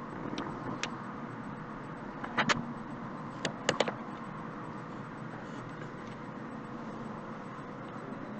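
A few sharp clicks over a steady background hiss: single ones near the start, a loud double click about two and a half seconds in, and a quick run of three about a second later.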